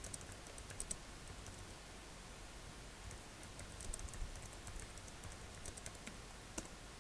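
Faint clicks of typing on a computer keyboard, in a short run at the start and a longer run from about three seconds in, with one sharper click near the end.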